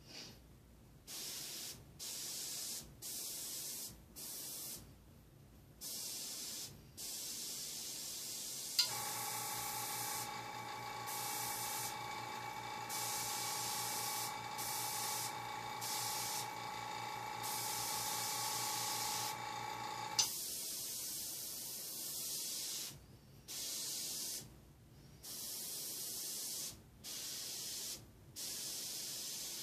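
Airbrush hissing in short on-off bursts about a second long as it sprays dots of paint. In the middle an air compressor motor hums steadily for about eleven seconds, switching on and off with a click.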